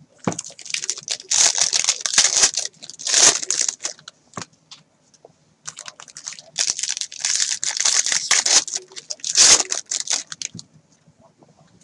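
Foil wrappers of Bowman Draft baseball card packs being torn open and crinkled by hand. The rustling comes in two spells of about four seconds each, with a pause of about two seconds between them, and goes quiet near the end.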